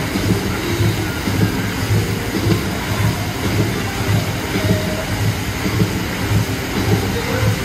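Dancing fountain jets spraying, a steady rush of water, with music carrying a low beat about twice a second.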